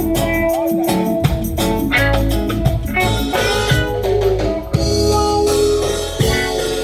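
Live reggae band playing an instrumental passage, with guitar over drums and a heavy low end.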